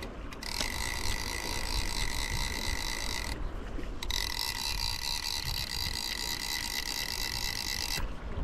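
Fly reel's ratchet clicker buzzing as the spool turns, in two steady runs of about three and four seconds with a short break between them.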